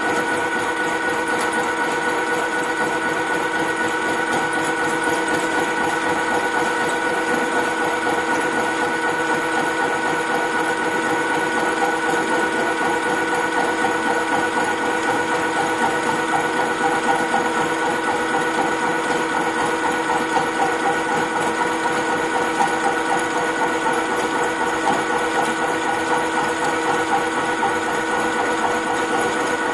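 Milling machine cutting hardened material: a steady whine from the spindle and cutter over a fast, even rattle of the cutter teeth biting the metal.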